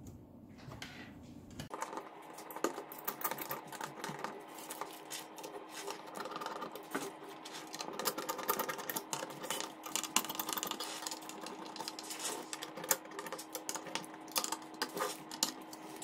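Small screwdriver turning the mounting screws of an AMD Wraith Stealth CPU cooler down into the motherboard, giving light, irregular clicks and taps of metal and plastic.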